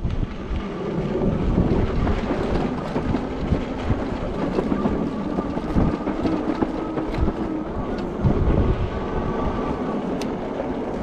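Jasion EB7 2.0 e-bike riding over loose gravel and sand: a rough, steady crunching rumble from the tyres, with scattered small knocks, and a faint steady whine through the middle few seconds.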